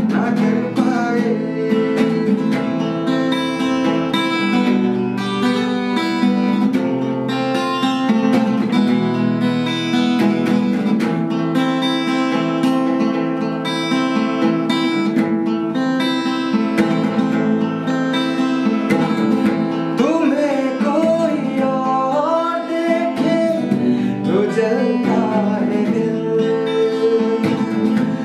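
Acoustic cutaway guitar strummed steadily, playing the chords of a song.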